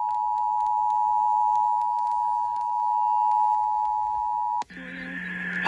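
Emergency Alert System attention signal, the steady two-tone alarm (853 and 960 Hz) that marks a statewide Required Monthly Test, received off the air from a cluster of radio stations. It cuts off abruptly about 4.7 seconds in. A short, lower steady buzzing sound fills the gap until the tone starts again at the very end.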